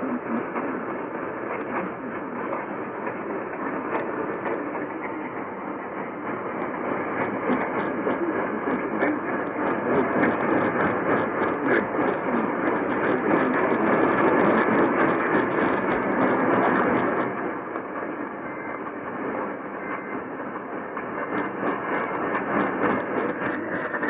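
Radio receiver static: a steady hiss cut off above about 3 kHz, scattered with crackling clicks, from a weak, distant signal being sought. It grows louder around the middle, then eases back.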